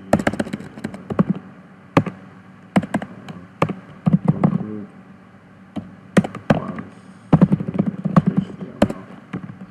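Typing on a computer keyboard: irregular keystroke clicks, coming in quick runs with short pauses between them.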